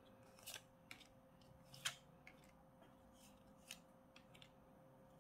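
Faint, irregular clicks and snaps of thin cardboard trading cards being slid off a small hand-held stack one by one, the loudest about two seconds in, over a faint steady hum.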